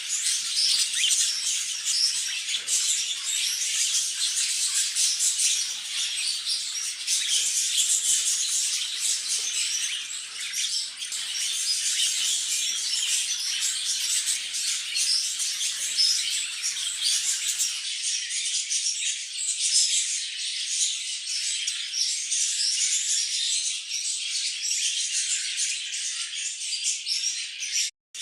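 Many small birds chirping and twittering together in a dense, continuous, high-pitched chatter, breaking off for a moment near the end.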